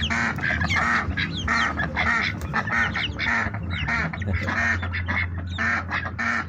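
Domestic ducks quacking over and over, many short calls one after another, a few each second.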